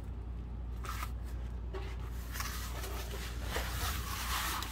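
Rustling and scraping as a person shifts around under a car while handling the camera, over a steady low hum; the rustling grows busier after about two seconds.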